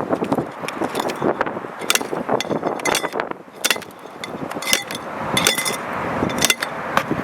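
Repeated sharp metallic clinks and knocks, about six, each ringing briefly, over steady scraping and rustling.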